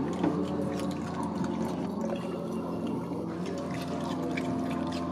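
Raccoon eating dry kibble from a bowl, crunching and chewing in irregular clicks, over a steady low hum.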